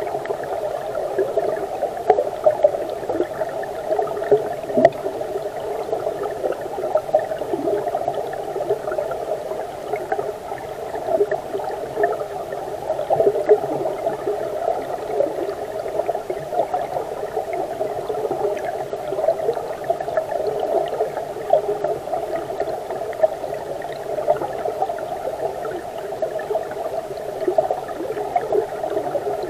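Flowing stream water heard underwater through a submerged camera: a steady, dull rush with frequent small pops and crackles.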